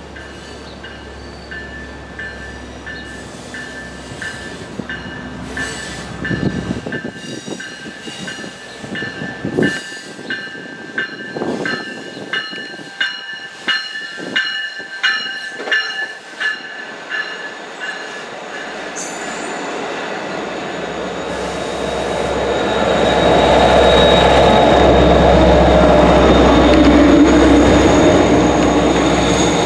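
Long Island Rail Road diesel commuter train at a station: a bell rings in an even rhythm, about three strokes every two seconds. Then the train's engine and wheels grow louder as it moves close past, loudest near the end.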